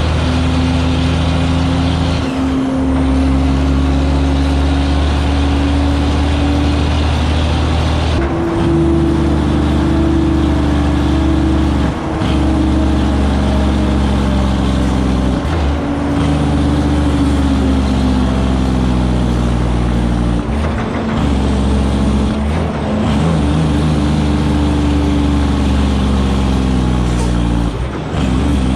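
Diesel engine of a 2001 Western Star semi tractor pulling a lowboy loaded with a 20-ton excavator. It runs steadily under load, with short breaks and pitch changes about seven times as gears are shifted.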